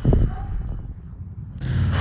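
Breath blown at a dandelion seed head buffeting the phone's microphone as low air noise: a sudden short blast at the start, then a second, longer blow building from about one and a half seconds in.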